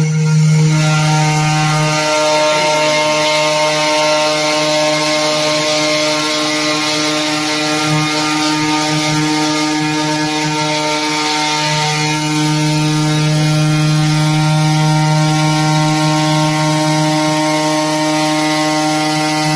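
3018 desktop CNC router cutting a groove into a board: the spindle motor runs with a steady hum, and the stepper motors whine in steady tones that shift in pitch as the axes change speed, about a second in and again around twelve seconds in.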